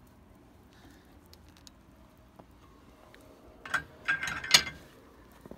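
A quiet stretch, then about four seconds in a short burst of metallic clanks and rattles, some of them ringing, as the hoisted steel frame and its rigging settle on the truck bed.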